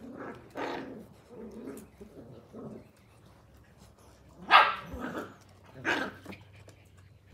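Blue heeler (Australian cattle dog) puppies barking as they play-fight, with several softer yaps in the first few seconds and two sharp, louder barks about four and a half and six seconds in, the first the loudest.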